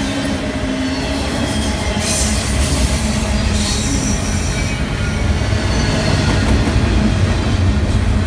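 Double-stack intermodal freight train's well cars rolling past close by: a loud, steady rumble of steel wheels on rail with some wheel squeal, and a brief bright hiss about two to three seconds in.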